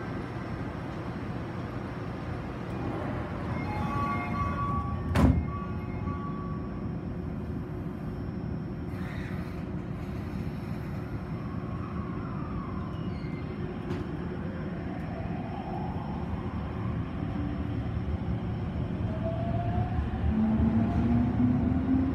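Toei Shinjuku Line subway train (set 10-470) standing at a platform, heard from inside the car. A chime sounds, then the doors slide shut with one sharp thud about five seconds in. Near the end the train starts off, its traction motors whining and rising in pitch as it accelerates.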